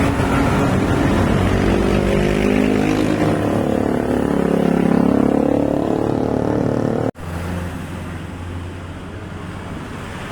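Engine of a heavy road vehicle running as it passes close, its pitch sliding as it goes by. About seven seconds in the sound cuts off abruptly and gives way to a quieter, steady traffic rumble.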